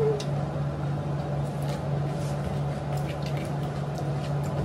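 Wet chewing of pani puri, crisp hollow puris filled with spiced water, with faint crunches and squishes, over a steady low hum.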